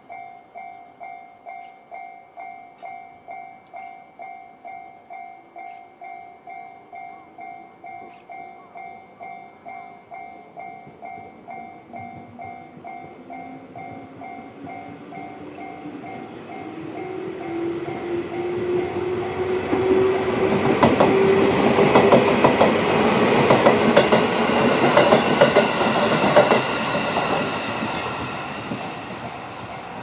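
JR standard level-crossing warning bell ringing steadily at about two strikes a second while a 211-series electric train passes over the crossing. The train's rumble builds from about halfway, with wheel clacks over the rail joints and a rising hum. It is loudest about two-thirds of the way in, then fades, and the bell rings on through it all.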